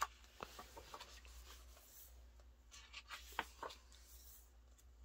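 Glossy photobook pages being turned by hand: faint paper rustling with a few light flicks and taps, the sharpest in the first second and a brief rustle with two clicks about three seconds in.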